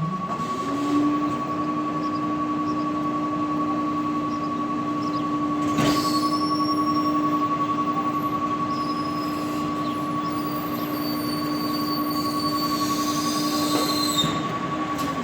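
Recycling truck's engine revving up about a second in and holding a raised, steady speed, as when driving the hydraulic compactor, then dropping back to idle near the end. High squeals come over the second half. A steady high-pitched electronic tone, the truck's strange beeping noise, sounds throughout.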